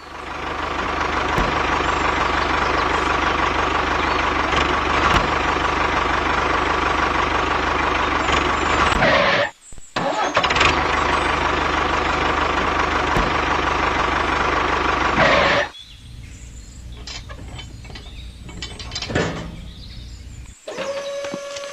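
A vehicle engine runs steadily, cuts out for a moment about nine and a half seconds in, then resumes and stops a few seconds later, leaving only a much quieter background with a few soft knocks.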